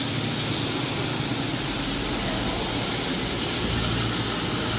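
Steady hiss of traffic on a wet road. A vehicle's low engine rumble builds near the end as it comes closer.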